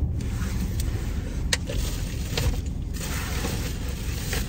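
Rustling and a few light clicks of someone shifting in a car seat and handling things, over a low steady rumble in the car's cabin.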